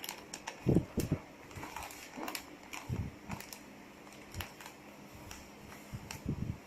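Plastic bag filled with dry macaroni handled and laid on a heat sealer's bar: plastic crinkling and clicking with a few soft thumps, the strongest about a second in.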